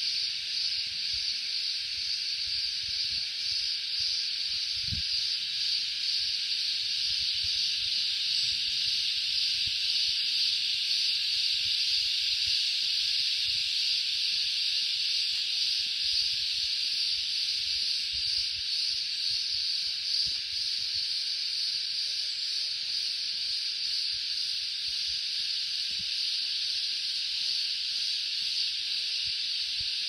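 Dense chorus of many cicadas, a steady unbroken high-pitched drone. A soft low bump about five seconds in.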